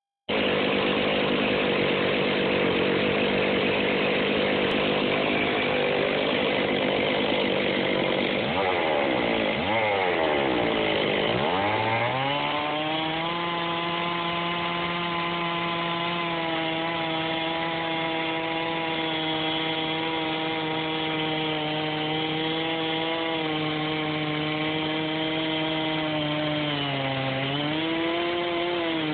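Stihl 660 two-stroke chainsaw running under load as a chainsaw mill, cutting wood. About nine seconds in the engine speed swoops down and back up a few times, then settles to a steady pitch; near the end it sags briefly and recovers.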